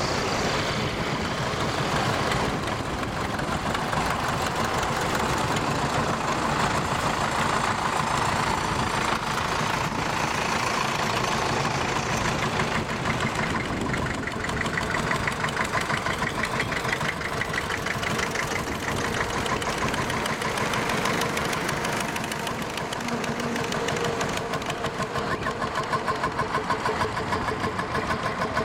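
Vintage farm tractors driving past one after another, their engines running with a rapid, even beat that is most distinct near the end.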